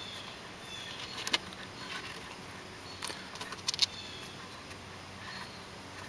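Faint rustling and a few short, light clicks of a small rope being handled and tied off at a deck cleat on a plastic sailboat hull, over a steady low hiss.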